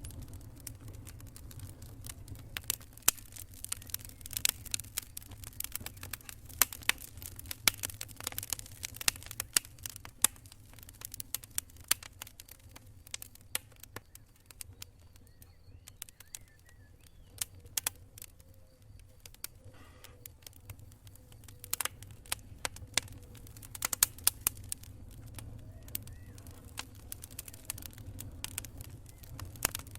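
Wood campfire crackling: irregular sharp snaps and pops, fewer for a few seconds around the middle, over a low steady rumble.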